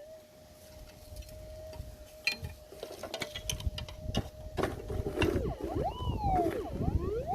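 Minelab GPZ 7000 metal detector humming a steady threshold tone over knocks and scrapes of digging, then, about five seconds in, sounding a target signal: loud tones that swoop up and down again and again as the coil passes over a buried gold target.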